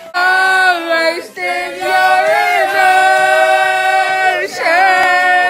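Singing, with little or no instrumental backing: voices holding long, steady notes in three phrases, the longest in the middle.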